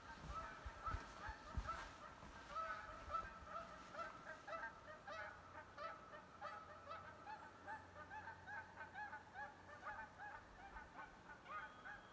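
A flock of geese honking: many short, rising-and-falling calls overlapping without a break, faint. A few footfalls on wooden boardwalk planks in the first two seconds.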